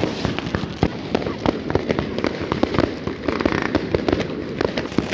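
Many firecrackers and fireworks going off all around in an unbroken barrage of sharp cracks and bangs, several a second and at irregular intervals.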